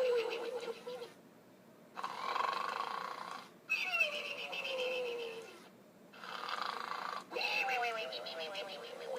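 Gund Arnold the Snoring Pig plush toy playing its recorded snoring sounds through its small built-in speaker: about five snores, each a second or two long with short pauses between, some ending in a slowly falling whistle-like tone.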